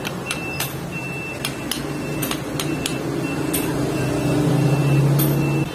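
Steady low mechanical hum, like a running motor, that grows louder about four seconds in and cuts off abruptly near the end. Over it come a repeated high-pitched beep and scattered sharp clicks.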